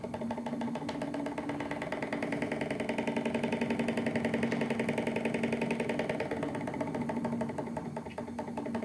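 Small gas-fired Stirling engine generator running with a fast, even mechanical clatter and a steady hum. It grows louder through the middle and fades toward the end, as the load of the capacitor it is charging drags the engine down toward a stall.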